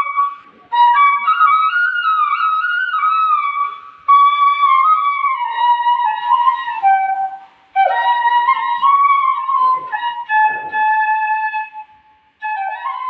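Solo flute playing a slow melody in phrases of a few seconds, with short pauses between them; the notes bend and slide from one to the next.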